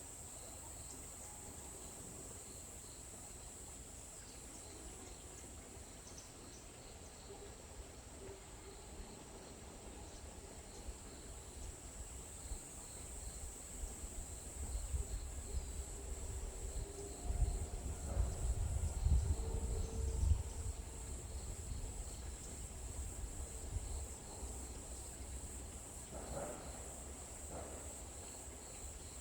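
Insects trilling steadily at a high pitch. A low rumble swells through the middle and fades again.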